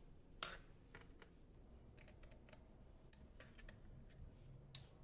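Near silence with a few faint, short clicks and taps from the laptop's plastic parts being handled as its optical disc drive is taken out. The clearest click comes about half a second in and another near the end.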